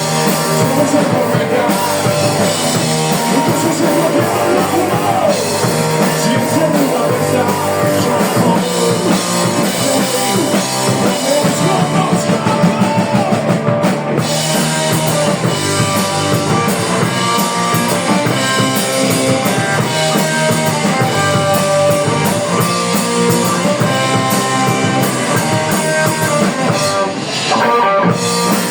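Rock band playing live: electric guitars and a drum kit in a steady full-band passage, with a brief drop in level just before the end.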